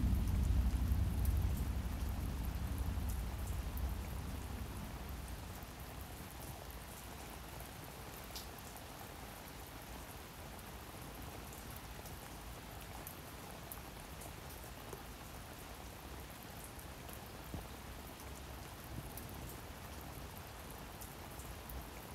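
Steady rain falling, with fine drop ticks. A low synth chord fades out over the first five seconds or so, leaving the rain on its own.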